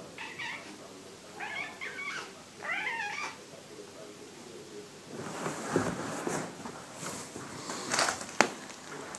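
British Shorthair cat giving three short, high-pitched, wavering meows in the first few seconds. Later come rustling and a couple of sharp knocks near the end as the cat passes close by.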